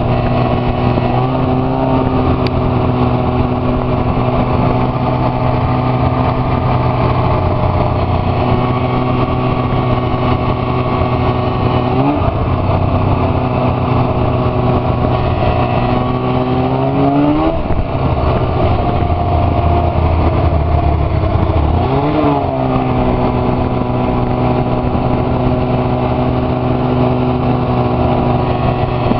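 Arctic Cat F6 Sno Pro snowmobile's two-stroke twin engine running under way, heard from on the sled. The engine holds a steady note, with its pitch dipping and climbing again three times as the throttle is eased and reapplied, about twelve seconds in, near the middle and a few seconds later.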